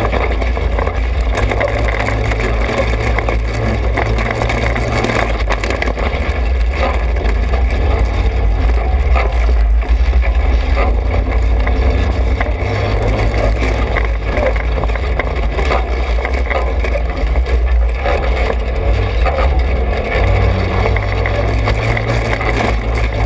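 Trailmaster 200 XRX dirt bike's small single-cylinder four-stroke engine running under way, its pitch stepping up and down several times with throttle and gear changes. Many short knocks and rattles come from the bike jolting over the rough trail.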